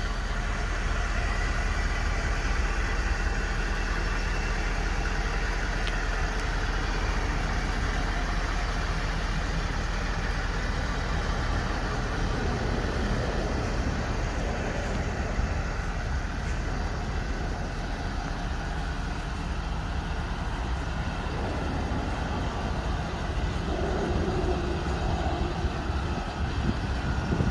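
2012 Ford F-350 pickup's engine idling steadily.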